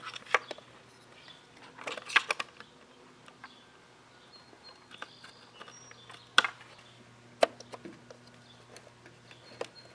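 Scattered sharp plastic clicks and knocks as a replacement backup camera is pressed into its mounting and its retaining clips snap into place, with a small cluster about two seconds in and single clicks later.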